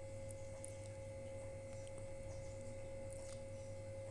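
Faint steady electrical hum: one held tone over a low drone. A few soft clicks come as chopped coriander is dropped into a steel mixer-grinder jar and its plastic lid is handled.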